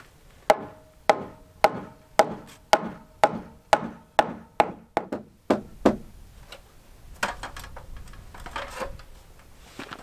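Hammer blows at an even pace of about two a second, each with a short ring, about a dozen in all, stopping about six seconds in. Fainter knocks and handling noises follow.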